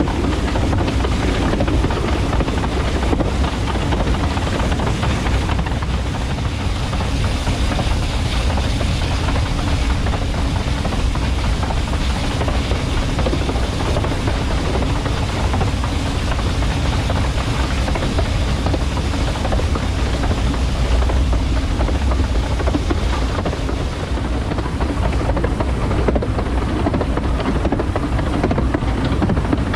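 Narrow-gauge steam train running along the line, a steady low rumble with rattling noise over it.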